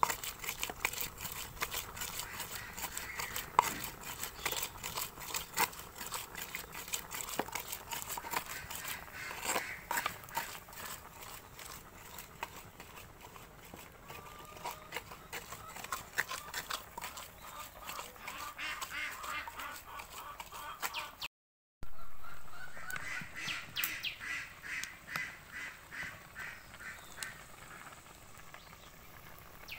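Ducks quacking repeatedly in the background, over many sharp clicks and taps. The sound drops out for a moment about two-thirds of the way through, then the quacking goes on.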